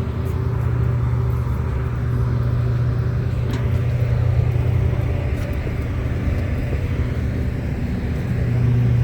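Steady low drone and rumble of a passenger train, heard from aboard.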